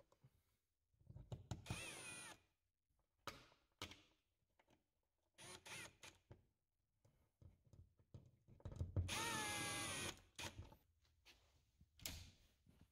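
Power drill running in several short bursts, its motor whine rising and falling in pitch with the trigger, the longest burst about two-thirds of the way in. A few short knocks come between the bursts.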